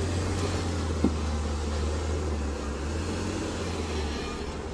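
Off-road vehicle's engine running steadily at low revs while crawling over rocks, with a single short knock about a second in.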